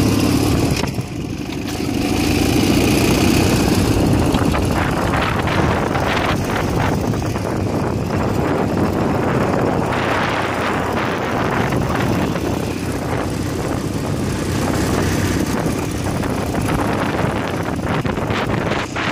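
Ural motorcycle's flat-twin engine running steadily while riding along a dirt forest track, with a brief drop in level about a second in.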